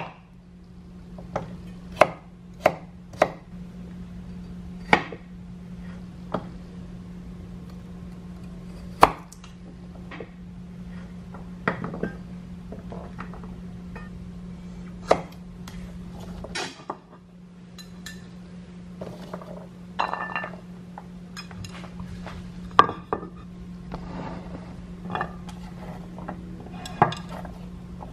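Kitchen knife cutting carrots on a wooden cutting board: sharp, irregular knocks of the blade on the board every second or two, with carrot pieces handled and set down. A steady low hum runs underneath and drops out briefly about two-thirds of the way through.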